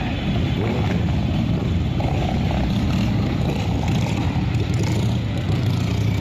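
Motorcycle engine running steadily, a continuous low rumble with no let-up.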